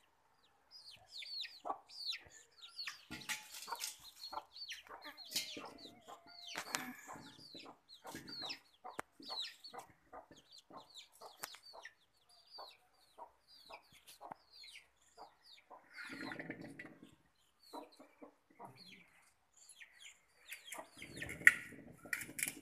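A flock of young chickens peeping in many short, high, falling chirps, with scattered small clicks. An adult chicken clucks about sixteen seconds in and again, louder, near the end.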